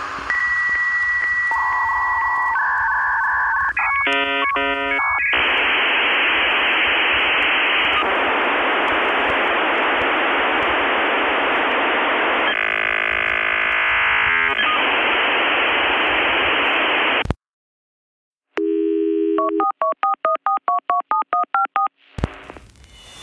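Dial-up modem handshake sounds. A steady tone and then shifting beeps give way to about twelve seconds of harsh hiss. After a brief cut-out comes a rapid run of short, alternating beeping tones, like touch-tone dialing.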